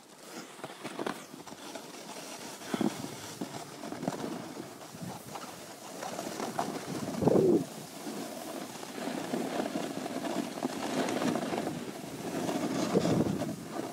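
Steady rushing scrape of sliding down a snow-covered ski run, swelling louder about seven seconds in and again near the end.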